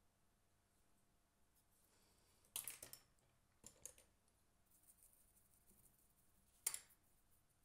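Small clicks and taps of face-painting tools being handled in a near-silent room: a quick cluster about two and a half seconds in, two more a second later, a light rustle, and one sharp click near the end.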